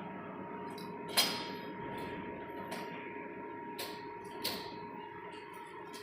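Steady machinery hum with a few sharp clicks and knocks, the loudest about a second in.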